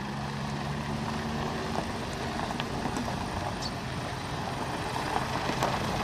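Pickup truck engine running at low speed as the truck pulls slowly away, a steady low hum that fades about halfway through.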